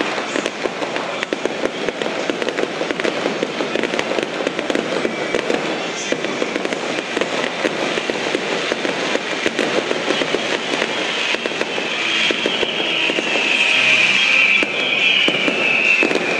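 Aerial fireworks display: dense, continuous crackling and popping of bursting shells. Over the last few seconds a high drawn-out whistle slides slightly down in pitch as the display gets louder.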